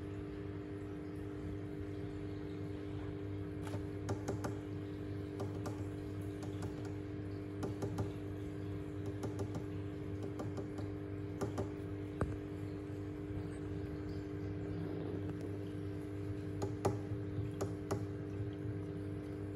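Aquarium filter pump humming steadily, with scattered light clicks and taps.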